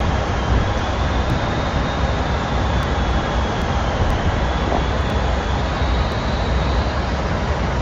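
Steady in-flight noise inside an airliner: a constant rush of airflow and engine rumble, heaviest in the low end, with a faint high whine over it.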